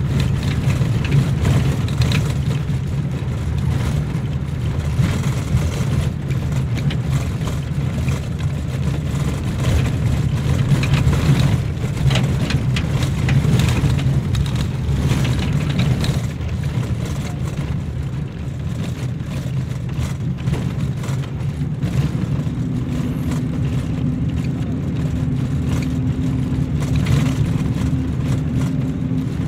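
Engine and road noise of a moving vehicle, heard from inside the cabin: a steady low drone with occasional rattles and knocks. About three-quarters of the way through, a steady engine tone comes in on top of the drone.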